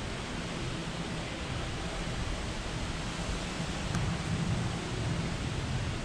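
Steady hiss with a low hum underneath, getting a little louder about two-thirds of the way through: the background ambience of a large interior space.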